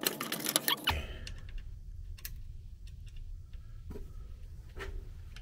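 Small metal hand tools clicking and rattling as they are handled, with a dense run of clicks in the first second and then a few separate clicks.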